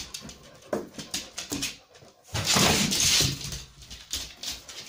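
Dogs moving about close up while being petted, claws ticking on a laminate floor. A loud rustling noise about halfway through lasts about a second.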